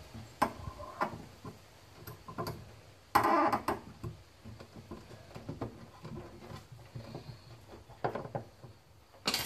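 Nylon zip tie being fitted and pulled tight around a wire on a metal frame: scattered small clicks and handling noise, a short ratcheting zip about three seconds in, and a sharp click near the end.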